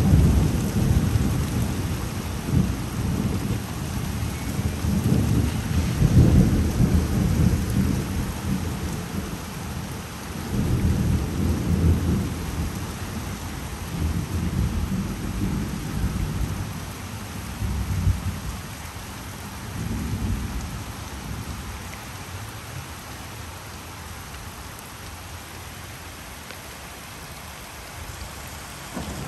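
Rolling thunder rumbling in several deep waves, loudest about six seconds in and fading away over the second half, over a steady hiss of rain.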